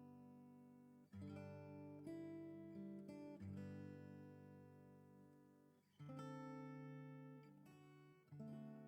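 Slow, quiet acoustic guitar playing: chords strummed about six times and left to ring and fade between strokes.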